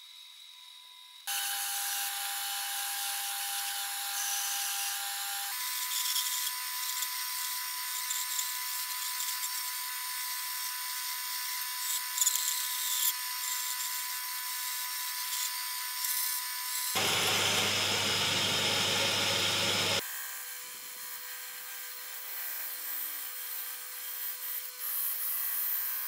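Woodworking power tools working plywood in quick succession, the sound changing abruptly from one machine to the next: a drill press boring with a Forstner bit, a bandsaw cutting out parts, and a disc sander shaping a small piece.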